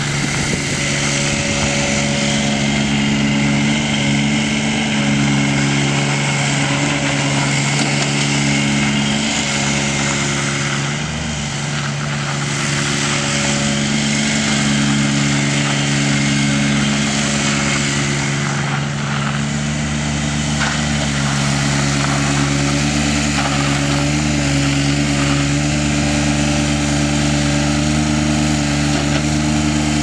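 Vermeer S600 mini skid steer's engine running steadily as the machine is driven and turned, with small dips in pitch as it works.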